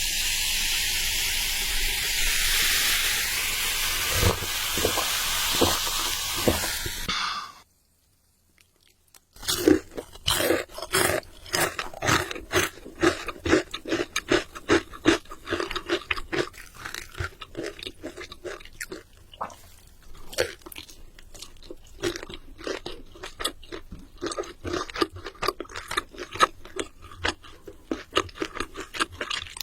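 Close-miked crunching and chewing of crispy KFC fried chicken: rapid, dense crisp crunches from bites and chewing. Before it, about seven seconds of steady hiss that cuts off into a short silence.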